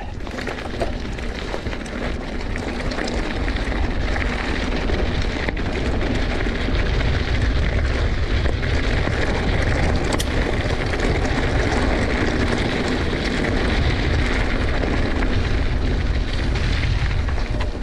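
Wind buffeting the action camera's microphone and knobby tyres rolling over a dirt singletrack during a mountain bike descent, growing louder over the first several seconds as speed builds, then holding steady.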